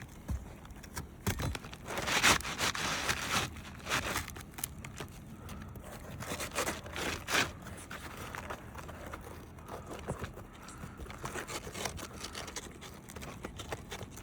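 Asphalt roof shingles scraping and rustling as they are handled and slid back into place, in uneven strokes with scattered sharp taps and knocks. The loudest scraping comes about two to four seconds in.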